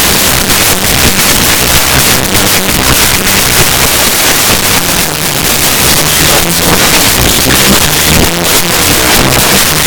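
Heavily distorted, clipped bass-boosted music: a loud, harsh noisy roar over shifting low bass notes.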